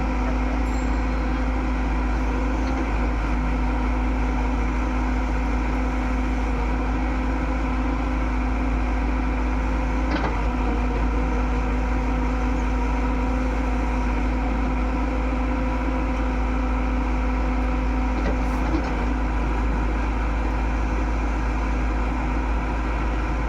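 Excavator's diesel engine running steadily with an even hum, and a faint knock about ten seconds in.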